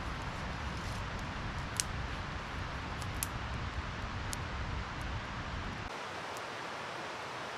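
Small fire of dry pine-needle tinder burning, with a few sharp crackles over a steady hiss. A low rumble under it stops abruptly about six seconds in.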